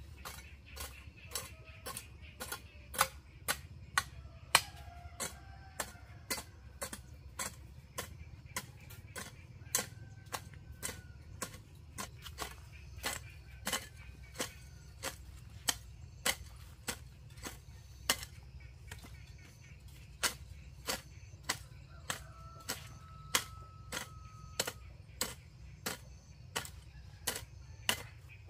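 Metal hand hoe chopping into bare soil in steady strokes, a sharp click about twice a second.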